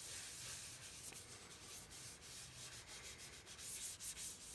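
Gloved hand rubbing metal polish paste across a plastic headlight lens: faint scratchy rubbing strokes, a little louder near the end.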